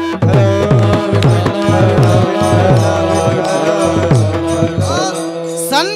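Kirtan accompaniment: a hand drum plays a fast run of deep strokes that bend down in pitch, about three a second, over a steady held note, with high jingling strokes above. The drumming stops about five seconds in.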